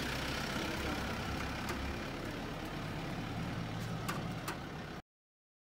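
Pickup truck engine running steadily as the truck pulls away, with a few sharp clicks near the end; the sound cuts off abruptly about five seconds in.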